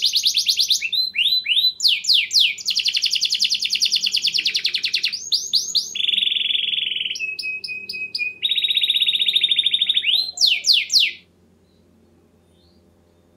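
Domestic canary singing a long song of rapid trills, quick falling sweeps and held buzzing rolls, broken by short pauses; the song stops about eleven seconds in.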